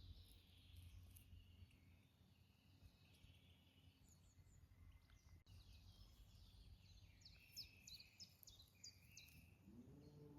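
Faint birds chirping and singing, with a quick run of chirps about three-quarters of the way in, over a low steady rumble of background noise.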